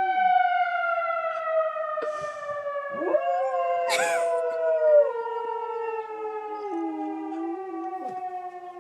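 Outdoor tornado warning siren winding down, its tone falling slowly and steadily, while a dog howls along with it. The howls rise and fall over the siren's tone, with a short sharp yelp about four seconds in.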